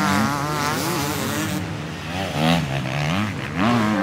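250cc motocross bike engines revving hard on the track, pitch climbing and falling with throttle and gear changes, with a sharp rise in revs about two and a half seconds in.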